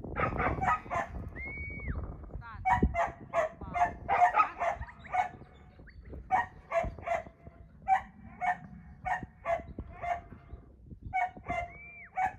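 Two shepherd's whistle commands to a working sheepdog, each a single held note that falls away at the end: one about a second and a half in, the other near the end. Between and under them run short animal calls, repeated about twice a second.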